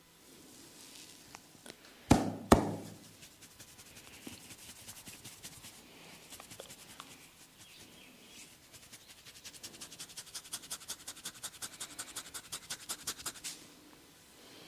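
A barber's hands working a head in a massage: two loud slaps about two seconds in, then soft rubbing and light patting, and from about nine seconds a fast, even drumming of strokes, about seven a second, that builds and cuts off suddenly near the end.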